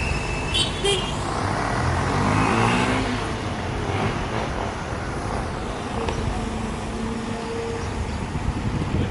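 Vehicle engines running, with one engine's pitch rising and falling about two to three seconds in and a brief high squeal or toot just before one second in.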